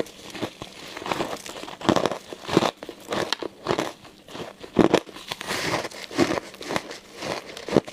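Ice being bitten and chewed in the mouth, close up: an irregular run of sharp cracks and crunches.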